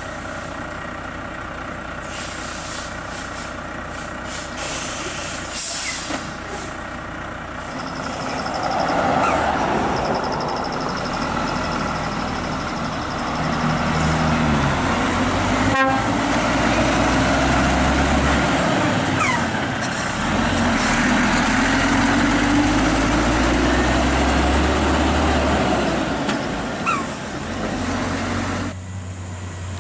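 Heavy truck engine running under load as a truck passes, growing louder about a quarter of the way in and staying loud until it drops away near the end.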